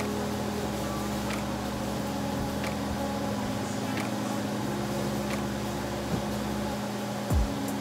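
Steady low mechanical hum of a running kitchen appliance, with a few faint ticks and a short low thump near the end.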